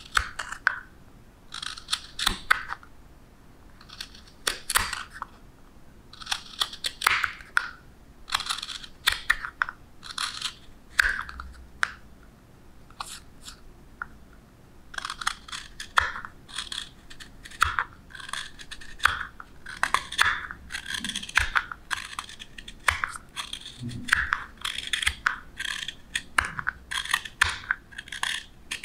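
Hook knife (spoon knife) cutting into the bowl of a wooden spoon: short, crisp slicing strokes as shavings are scooped out, in irregular runs with brief pauses.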